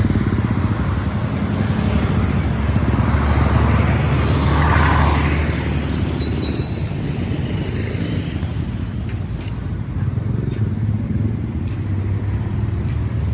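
A road vehicle's engine running steadily while on the move, with wind and road noise over it.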